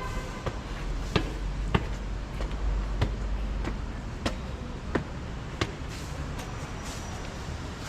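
Footsteps on hard ground at a walking pace, about one and a half steps a second, over a steady low hum of city traffic.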